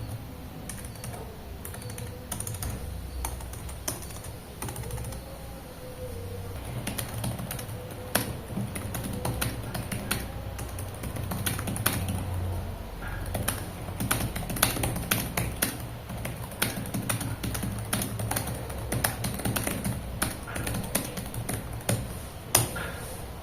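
Typing on an ASUS TUF laptop keyboard: key presses clicking in quick, irregular runs, sparse at first and much busier from about a third of the way in, over background music.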